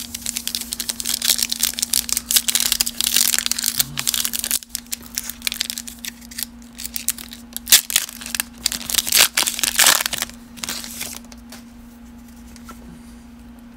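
Foil wrapper of a baseball card pack being torn open and crinkled in the hands: a dense, crackling rustle that dies down near the end. A steady low hum runs underneath.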